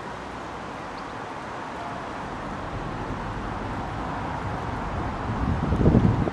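Steady road traffic noise, with a vehicle passing that swells into a low rumble near the end.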